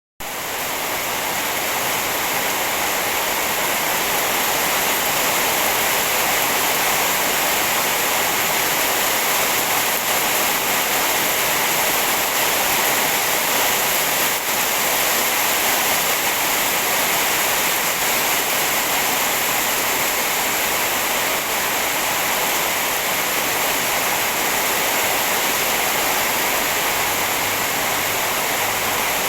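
Heavy rain falling steadily, a dense even hiss with no single drops standing out, swelling up over the first few seconds.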